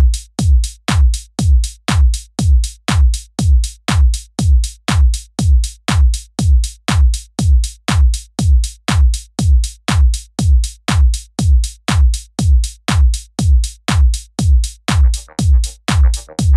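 Background electronic music with a steady drum-machine kick at about two beats a second; another layer comes in near the end.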